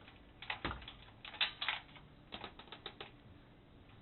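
Light clicks and rattles in three short clusters, with a dull knock in the first, as the old photocell wire and its plug are pulled out through the bottom of a pinsetter's kickback mount.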